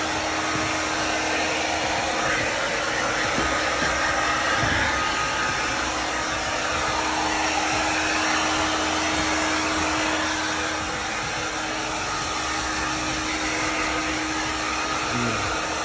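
Handheld hair dryer running steadily on a freshly bathed dog's wet coat: a constant rush of air with a steady hum under it.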